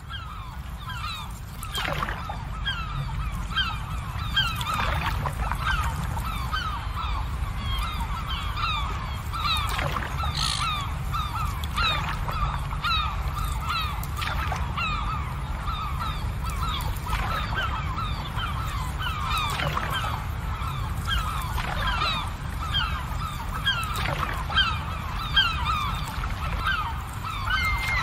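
A flock of birds calling: many short, honking calls overlapping continuously, over a steady low rumble.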